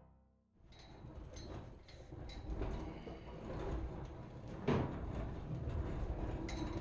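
Rumbling and rattling of something heavy being rolled or shifted, with small clicks and one sharp knock about two-thirds of the way through.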